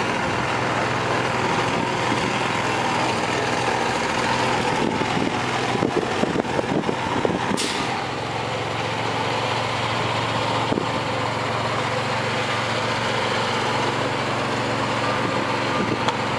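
A small boat's engine running steadily at idle under a dense wash of noise, with a few irregular knocks about halfway through.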